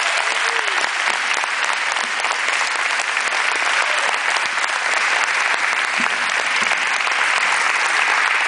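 An audience applauding: steady, dense clapping from a large crowd.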